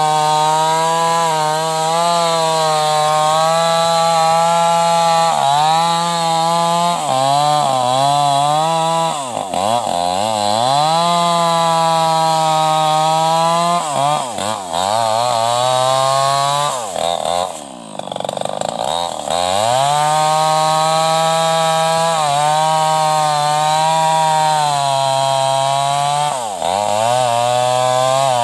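New West 588 two-stroke chainsaw with an open, unmuffled exhaust, running at high revs while cutting hard juar wood. The revs dip several times, and about two-thirds through they fall briefly toward idle before rising again.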